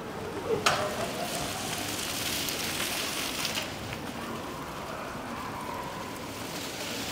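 Steady rushing hiss of water, with one sharp click about half a second in.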